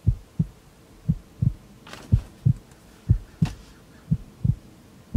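Heartbeat sound effect: steady lub-dub double thumps, about one beat a second.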